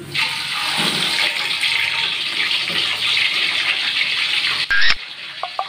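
Whole tilapia frying in hot oil in a wok: a loud, steady sizzle that starts suddenly and breaks off abruptly near the end with a brief louder burst.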